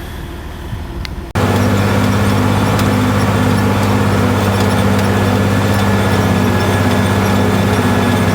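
Tractor engine running steadily under load while plowing, a loud even drone that comes in abruptly about a second in after a quieter hum.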